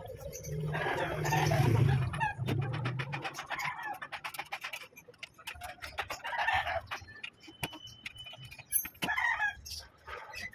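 A rooster crowing and clucking in three bouts, a long one near the start and shorter ones about six and nine seconds in, over a run of short clicks.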